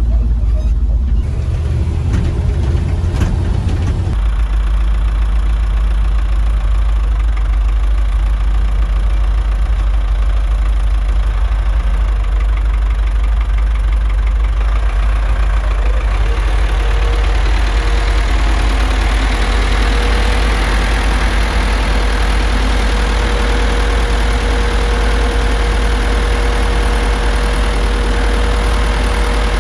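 Farm vehicle engine running steadily while being ridden, a loud low rumble. A steady whine joins from about halfway through.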